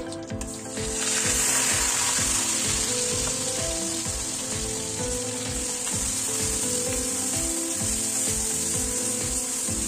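Ground onion paste sizzling as it hits hot mustard oil in a kadhai, starting about a second in, then frying steadily while a spatula stirs it through the tempered spices.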